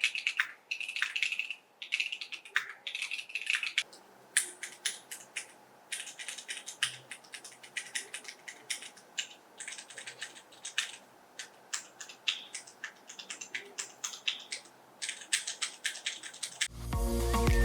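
Typing test on a VARO SAN AC067 full-aluminium 65% mechanical keyboard, fitted with non-clicky Cocoa Caramel and Cherry MX Brown switches and PBT keycaps: a quick, continuous run of key strokes clacking. Background music comes back in near the end.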